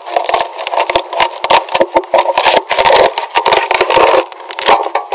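Cured fiberglass layup being prised and peeled off its form by hand: a rapid, irregular run of loud cracks, pops and tearing as the laminate breaks free.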